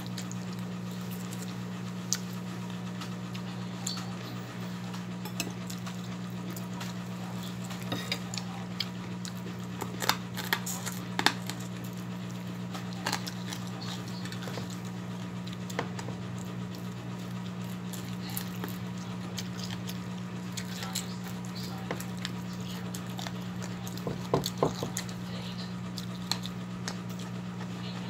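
Eating sounds at a table: scattered soft clicks and taps of fingers and dishes on an enamel plate as food is eaten by hand, with louder clusters about ten and twenty-four seconds in, over a steady low hum.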